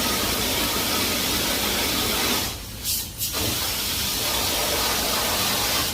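Car-wash pressure-washer wand spraying with a loud steady hiss. It cuts off about two and a half seconds in, gives one short blast, then resumes and stops near the end.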